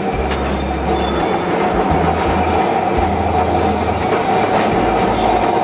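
Antique Kolkata electric tram running on its rails, heard from the driver's cab: a steady loud rumble and rattle of wheels and body, with sharp clicks now and then.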